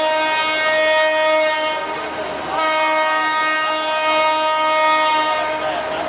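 A train's horn sounding in two long, steady blasts: the first ends about two seconds in, and after a short break the second sounds for about three seconds. The noise of the passing train runs underneath.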